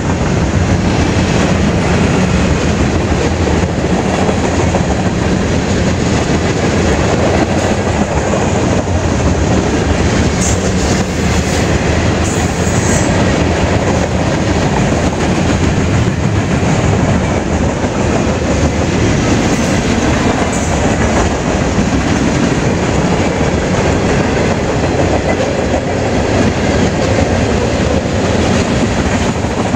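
Freight train rolling steadily past close by, its cars' wheels running continuously over the rails.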